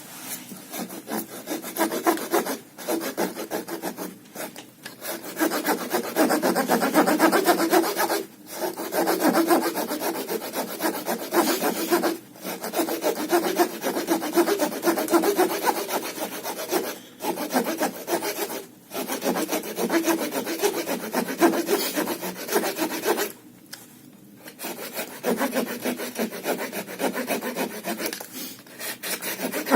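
Small folding wood-saw blade of a Victorinox Outrider pocket knife cutting through a log by hand: a steady back-and-forth rasp, broken by several short pauses and one longer one about three quarters of the way through.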